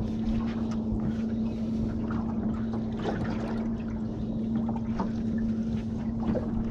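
Steady low machine hum aboard a small fishing boat, one unchanging tone, with water moving around the hull and a few light knocks.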